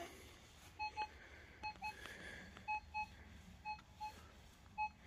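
Metal detector giving short, fairly faint double beeps, about one pair a second, as it sounds off over a buried target.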